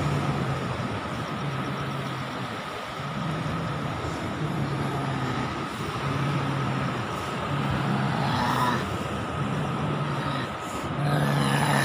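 A man's low, wordless voice sounding in short, even pulses about once a second, over a steady rushing hiss.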